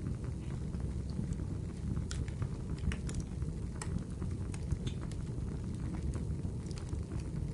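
Wood fire crackling in a fireplace: a steady low rumble of flames with scattered sharp crackles and pops at irregular intervals.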